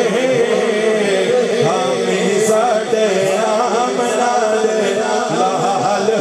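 A man singing a Punjabi naat into a microphone, in long, wavering melodic lines.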